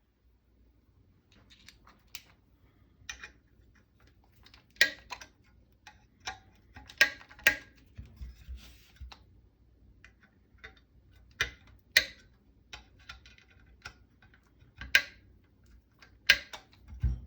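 Sharp clicks and small metallic knocks of hand tools on the rifle's screws, coming singly and in pairs a second or several seconds apart, as the forend screws are torqued.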